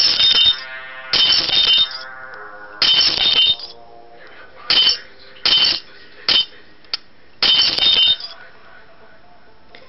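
Glass-shattering sound effect from a prank 'broken glass' app, played through a mobile phone's small speaker about seven times at uneven intervals, one crash for each tap on the screen, each with a brief ringing tail.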